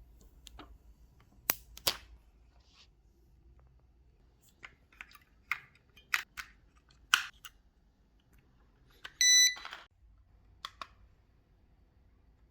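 Scattered sharp clicks and taps of handling, then one short, high electronic beep from the Baseus Heyo countdown timer about nine seconds in, followed by one more click.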